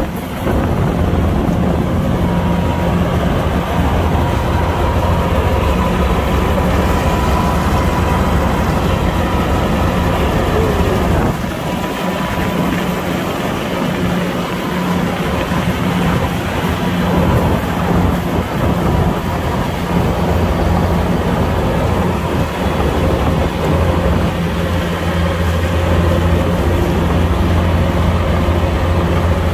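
Kubota combine harvester's diesel engine and machinery running steadily while harvesting, a loud continuous low hum. The low hum eases for a few seconds about twelve seconds in, then returns.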